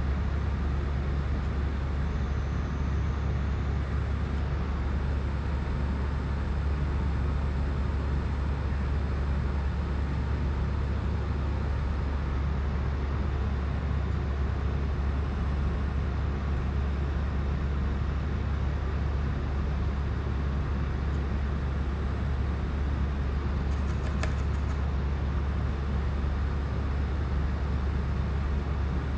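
Steady low hum and rumble with an even hiss above it, unchanging in level, with a few faint ticks near the end.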